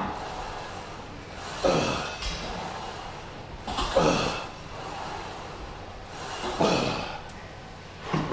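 A weightlifter's heavy, forceful breaths, one about every two and a half seconds, pushed out with each rep of a heavy hack squat.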